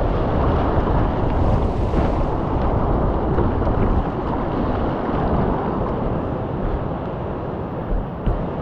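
Steady roar of a big whitewater river rapid in high water, about 250 cubic metres per second, with low wind rumble on the microphone. Two brief thumps near the end.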